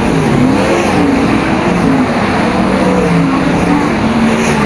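A field of winged sprintcars racing on a dirt oval: several V8 engines at high revs together, loud and continuous, their overlapping pitches rising and falling as the cars go on and off the throttle.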